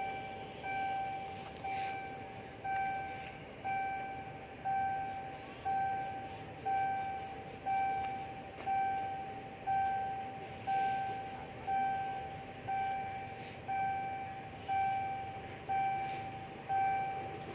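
Railway level crossing warning bell ringing steadily, one clear ding about every second, each dying away before the next: the crossing's signal that a train is approaching and the barriers are down.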